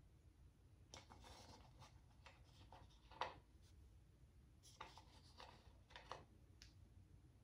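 Faint, scattered rustles and light taps of small cutout birds being handled and laid onto a felt tree and underlay, the sharpest a single tick about three seconds in.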